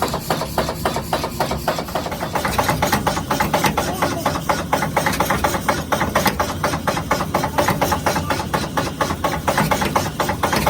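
Power hammer striking hot steel in a fast, even run of blows, several a second, over the steady hum of its motor.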